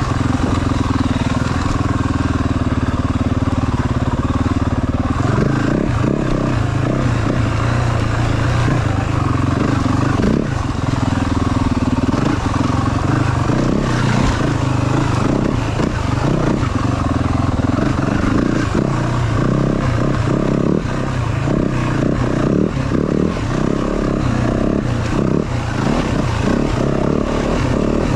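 Yamaha WR450F's single-cylinder four-stroke engine running under a rider. It holds a steady note for about the first five seconds, then revs up and down unevenly as the throttle is worked.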